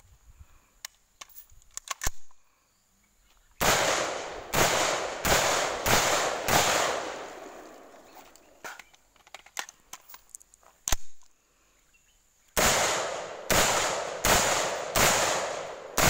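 M4-style 5.56 mm carbine fired semi-automatically: five rapid shots over about three seconds, each with a long echoing tail. A single sharp crack follows a few seconds later, then a second string of five shots.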